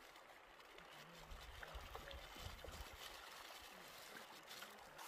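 Near silence: the faint, steady trickle of a shallow river over rocks, with a low rumble for a second or so near the start.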